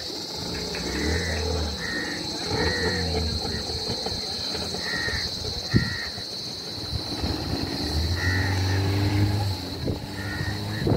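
Open-air shoreline ambience: short bird calls repeat every second or so over a steady high-pitched hiss, with a low hum that comes and goes.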